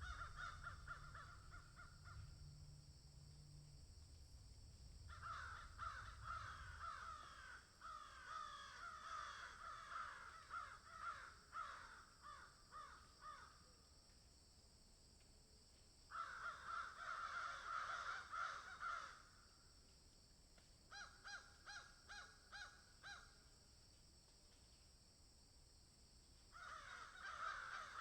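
A group of crows cawing harshly in several bouts of rapid overlapping calls, with pauses of a few seconds between bouts. A steady faint high hiss runs underneath.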